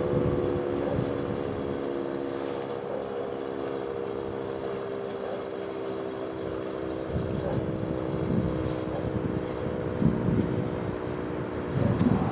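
H.O.R. Siro-Drone siren sounding its steady full-alert tone, a chord of several held pitches that swells slightly as the siren rotates. Wind buffets the microphone in the second half.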